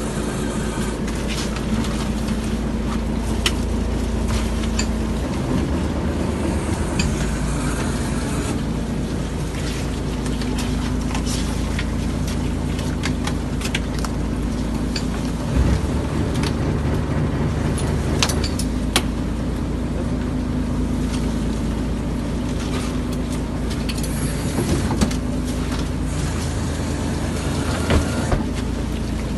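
A small fishing boat's engine running steadily, its note shifting now and then, with scattered clicks and knocks from gear being worked on deck.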